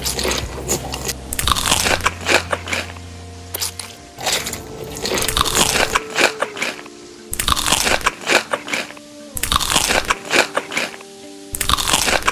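Crunchy food being bitten and chewed close to the microphone, a run of loud crunches every second or two, with background music underneath.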